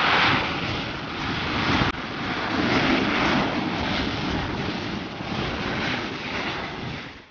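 Boeing 737-800 jet engines running loud as the airliner rolls past close by on its landing roll-out, a steady rushing jet noise that swells twice.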